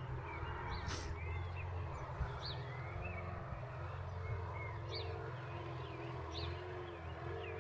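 Small birds chirping outdoors, short high calls repeating every second or so, over a steady low background rumble.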